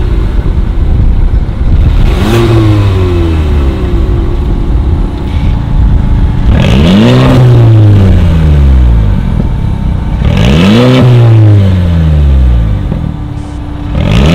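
Mercedes-Benz GLA250's turbocharged 2.0-litre four-cylinder blipped from idle through a valved catback exhaust and catless downpipe. Each rev rises and falls in pitch over two or three seconds; there are three, with a fourth starting at the end. The first is with the exhaust valves closed, the later ones with the valves open.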